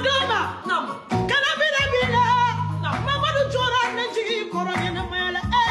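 A woman singing a Bambara praise song in long, wavering, ornamented notes over a backing track with a steady bass line that briefly drops out a few times.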